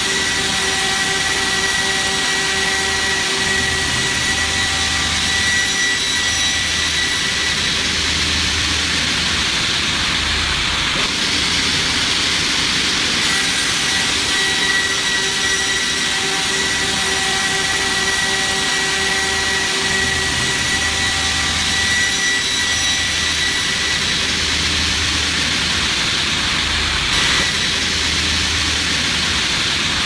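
Steady running of a log-sawing machine: a dense rushing noise with a high whine held through most of it and a low hum that swells and fades over several seconds, then returns.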